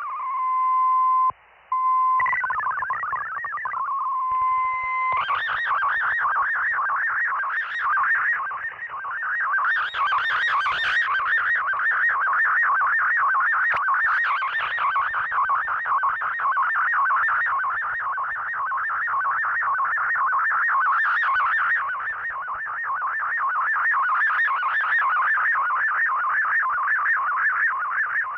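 Shortwave digital-mode data signal heard through the receiver: in the first few seconds, steady single tones step between a low and a higher pitch, then a fast, continuous warble of rapidly shifting tones begins as the text data is sent.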